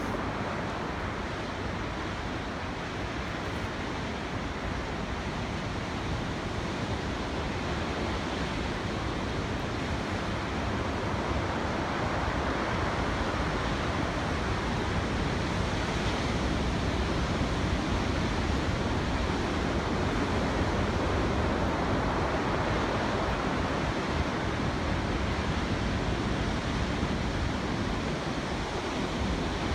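Steady rush of sea surf and coastal wind, with the wind buffeting the microphone. It swells slightly through the middle and eases a little near the end.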